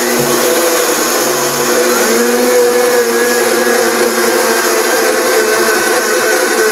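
Blendtec high-power blender running loud and steady, grinding rolled oats into flour. Its motor whine steps up slightly in pitch about two seconds in.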